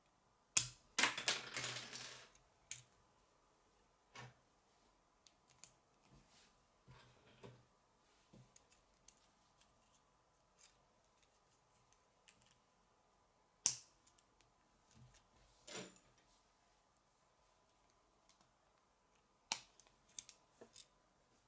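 Plastic K'nex rods and connectors clicking and rattling as they are handled and snapped together, with the loudest clatter about a second in and single sharp clicks later on.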